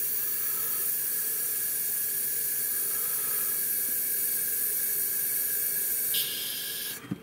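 Gaahleri Ace airbrush spraying cleaner through into a cleaning pot: a steady hiss of compressed air flushing the paint out during cleaning. The hiss shifts slightly near the end and then cuts off suddenly as the trigger is released.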